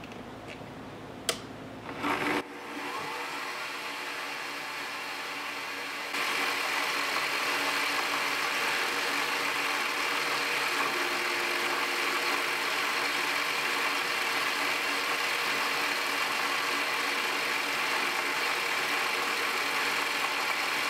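Mini lathe switched on after a click about two seconds in, its motor and spindle running with a steady whine and a step up in loudness about six seconds in, turning a brass rod for a facing cut.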